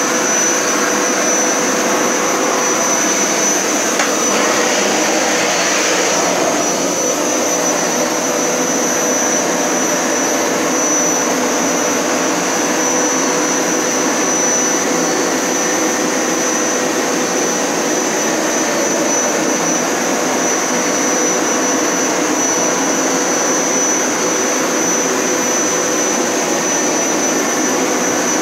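Hoover Power Scrub Elite Pet upright carpet cleaner running steadily, with a constant hum and a high whine over its motor noise.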